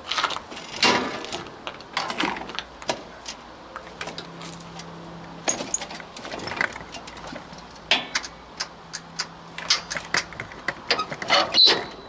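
Irregular light clicks, taps and a jangle of keys as the ignition is tried on a zero-turn lawnmower. The starter never cranks: the replacement starter solenoid is not grounded, so it does not engage.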